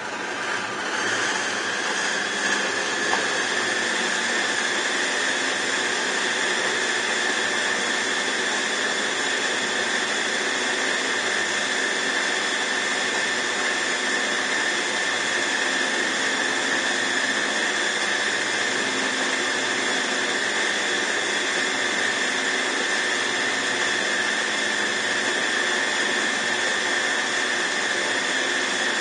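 Turn Pro drill press running: its motor and spindle speed up over the first second or two, then run steadily with a high whine.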